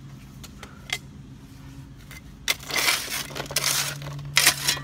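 Steel shovel scraping and dropping soil back into a trench over corrugated drain pipe: three rough, crunching strokes, starting about halfway in, with a single knock before them.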